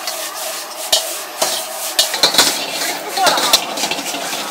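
Metal ladle scraping and knocking against a wok as food is stir-fried over a high flame, with the steady sizzle of frying underneath. The ladle strikes the wok sharply several times.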